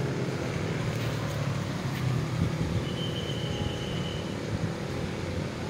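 A steady low mechanical rumble, with a faint thin high tone lasting about a second near the middle.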